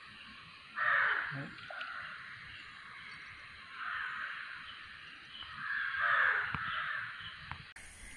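A bird calling harshly a few times in a row, with gaps of a couple of seconds between calls.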